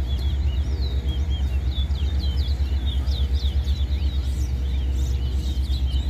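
Caged songbirds in a singing contest, giving a fast, continuous run of short, high chirps over a steady low rumble.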